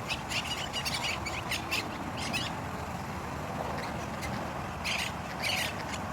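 Green parakeets squawking loudly, a run of short harsh calls in quick clusters. The calls pause for about two seconds in the middle, then start again.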